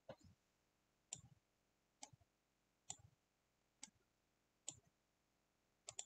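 Faint tennis rally on a hard court: sharp pops of the ball off racket strings and bounces on the court, about one a second.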